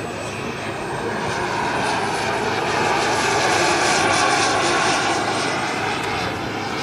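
Engines of a large radio-controlled model de Havilland Comet 4 airliner flying past overhead: a steady rushing engine noise with a thin high whine on top. It builds to its loudest about four seconds in, then fades as the model passes.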